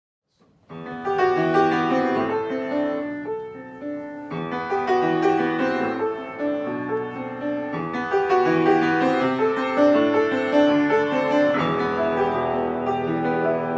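Solo piano playing a slow, chordal introduction, starting about a second in after silence, in phrases with a brief dip about four seconds in.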